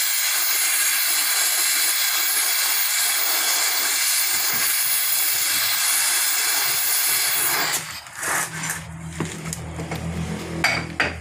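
Oxy-acetylene torch flame hissing steadily as it heats a steel rivet in a truck chassis rail, the hot-riveting stage before the rivet is hammered. About three-quarters through the hiss cuts off and a few light metal knocks and clinks follow as the rivet set is placed against the hot rivet.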